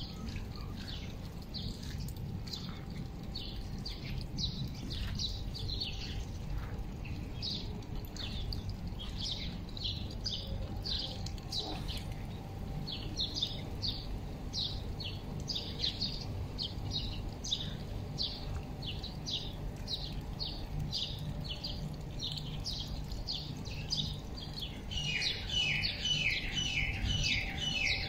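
Small birds chirping in many short, quick, falling notes, with a louder, faster run of chirps starting near the end, over a steady low rumble.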